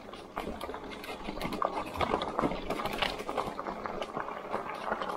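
Lectric XP folding e-bike rolling over a rough, rocky trail surface: the tyres crunch and the bike knocks in a dense, irregular run of clicks and bumps.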